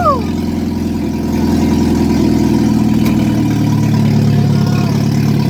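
1989 Jeep Wrangler engine running loud with no exhaust fitted, its note lifting slightly about two seconds in.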